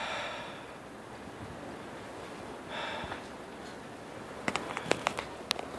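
Two short sniffs close to the microphone, then a quick run of sharp clicks and taps about four and a half seconds in: the recording phone being handled.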